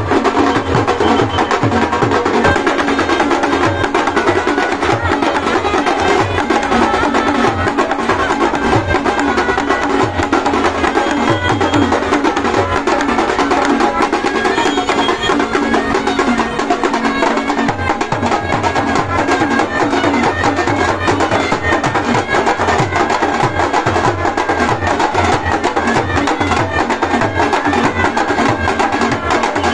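Loud, percussion-heavy music with rapid, continuous drum hits, going on without a break.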